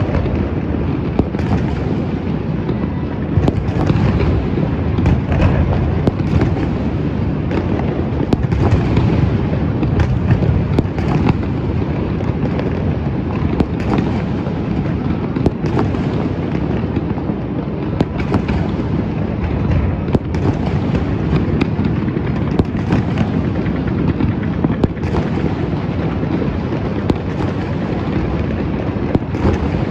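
Fireworks and firecrackers going off without pause: a dense, steady rumble of blasts with many sharp cracks on top.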